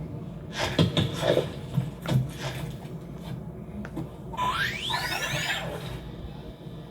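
Film sound effects: a quick run of knocks and clatter, then a single rising whistle-like sweep about four and a half seconds in.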